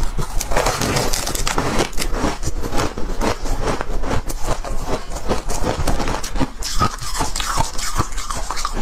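Close-up crunching of frost being chewed, a rapid run of crisp crackling crunches.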